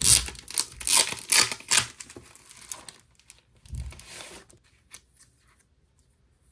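A clear plastic binder page crinkling and crackling as it is handled and unfolded, most intense over the first three seconds. A softer rustle with a dull bump follows about four seconds in, then only a few faint ticks.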